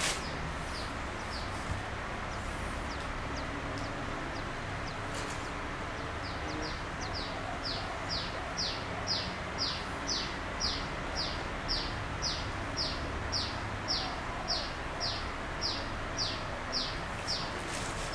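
A bird calling over and over in the background: a long series of short, high, falling notes, about two a second, starting about six seconds in, over steady background noise.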